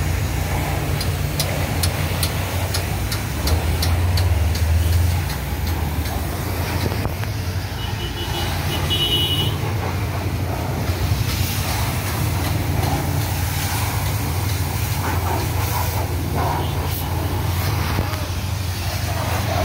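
Pressure washer running with a steady low hum while its water jet sprays against a car's wheel and wheel arch. A brief faint beeping comes about eight seconds in.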